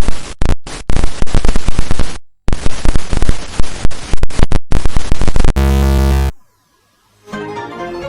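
Loud glitching static, cut up into rapid stuttering bursts with brief dropouts, ending in a loud buzzing tone of under a second. After a short silence, electronic music begins near the end.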